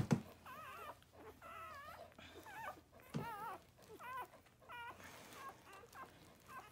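Golden Retriever whimpering: a string of short, high, wavering whines, with a sharp bump at the very start.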